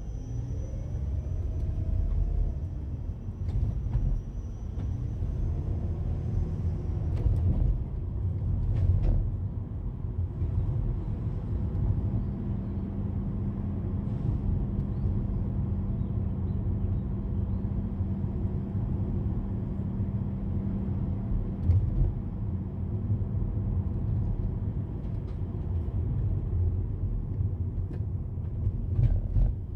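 Car road and engine noise heard from inside the cabin while driving: a steady low rumble, with the engine's pitch rising and falling a few times in the first seven seconds and a steady hum for about twelve seconds in the middle. A few light clicks and knocks are scattered through it.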